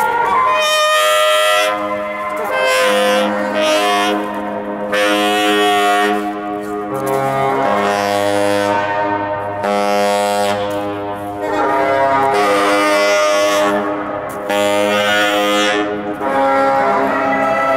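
Tenor saxophone playing long held notes of a few seconds each, separated by short breaths, with breathy air noise over the tone.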